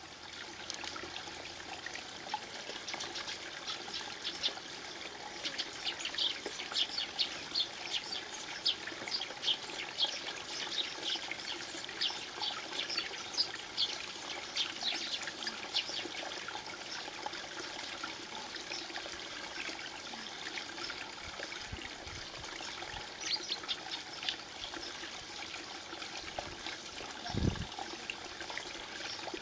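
Spring water trickling and burbling into a shallow pool, with many small, bright splashy drips, thickest in the first half. A brief low thump near the end.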